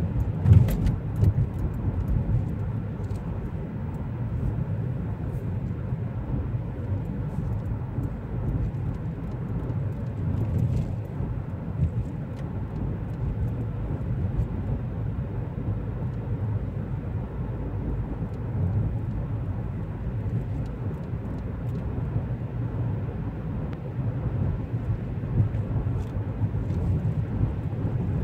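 Car driving along a road, heard from inside the cabin: a steady low rumble of engine and tyre noise, with a louder knock about half a second in and a few faint ticks.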